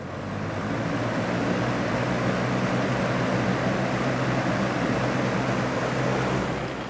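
Cheap Lasko box fan switched on and spinning up over about a second, then running with a steady rush of air over a low motor hum, easing off slightly near the end.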